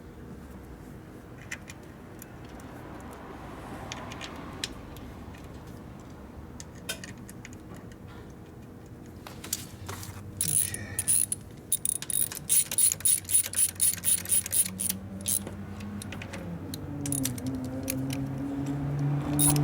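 Sharp metallic clicking from hand work on a Harley Ironhead Sportster transmission: a few scattered clicks, then about halfway through a quick run of about three clicks a second, ratchet-like. A steady hum rises near the end.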